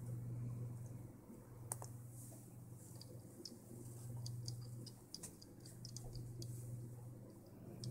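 Light clicks and ticks over a steady low hum, with one sharper click about two seconds in that fits a tactile push button on a breadboard being pressed.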